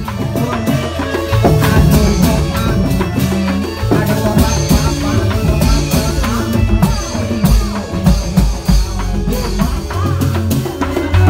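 Loud music of an Indramayu reog troupe: drums on a steady, pounding beat with bass notes and a wavering melody line above.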